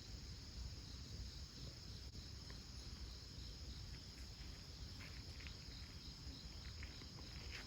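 Autumn insects chirping at night: a steady high trill with a pulsing chirp over it at the start. A few faint clicks come in the second half.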